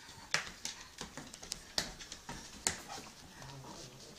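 A crawling toddler's palms slapping a hardwood floor: about half a dozen sharp, irregular taps.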